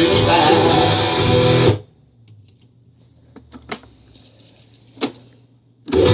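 Guitar-led music that stops abruptly under two seconds in. A few seconds of quiet follow, broken by a couple of sharp clicks, then the music comes back in at full level near the end.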